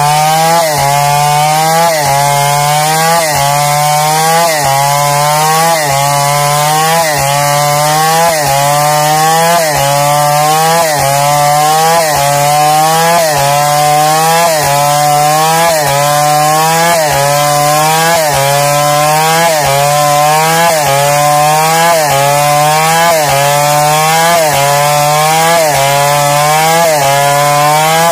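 New West 707 two-stroke chainsaw with a 36-inch Oregon bar ripping a log lengthwise into a plank under load. The engine pitch rises and then drops sharply, about once a second.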